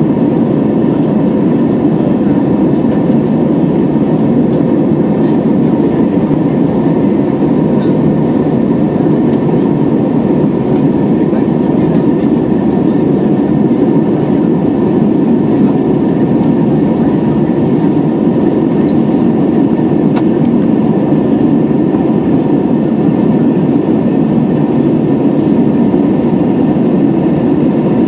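Steady cabin roar of an Airbus A320-214 in its climb: the CFM56-5B turbofans and the rush of air over the fuselage, heard from a window seat over the wing, with a faint steady whine on top.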